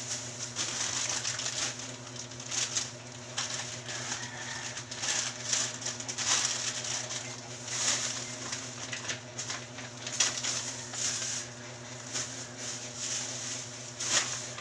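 Plastic bags and wrappers rustling and crinkling as they are handled and sorted, in irregular bursts.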